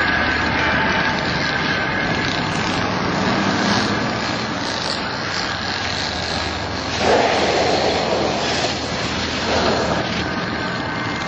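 A steady engine drone heavy with noise, swelling louder about seven seconds in.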